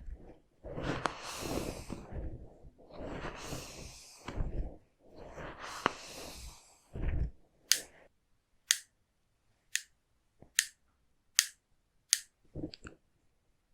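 Hair-cutting scissors snipping close to the microphone, six crisp snips about one a second in the second half. These follow a few long, soft whooshes.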